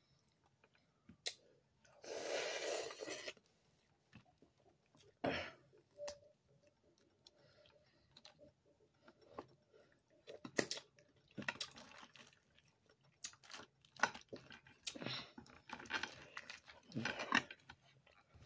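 Close-up eating sounds of boiled crawfish: chewing, with crunches and cracks of the shells being peeled by hand, coming in separate short bursts and clicks, and a longer noisy burst about two seconds in.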